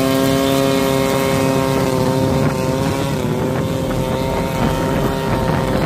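Engine and propeller of a homebuilt light aircraft running steadily, its pitch dipping slightly about three seconds in, with wind noise on the microphone.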